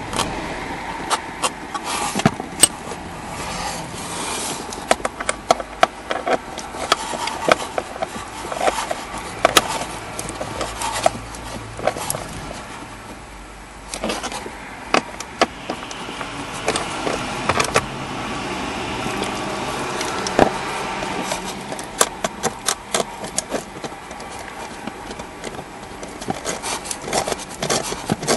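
Hand ratchet clicking in short, irregular runs as screws are snugged into the plastic blower-motor housing, with light scrapes and knocks of the tool against the housing.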